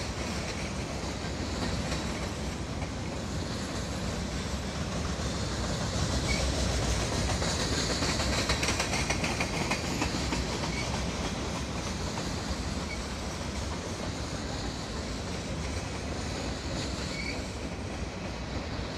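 Freight train of covered hopper cars rolling past: a steady noise of steel wheels on rail that grows louder for a few seconds in the middle, with a few short high squeaks from the wheels.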